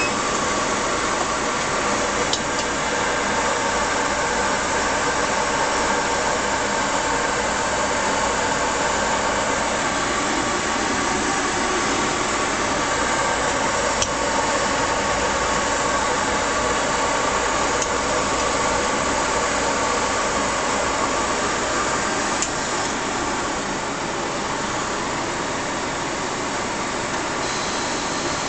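Steady whir of fans and machinery around an SVG88 photoresist coater track in a fab cleanroom, with a few faint clicks. It drops slightly in level in the last few seconds.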